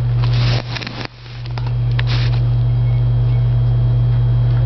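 A steady low hum, with a few brief rustling noises in the first couple of seconds.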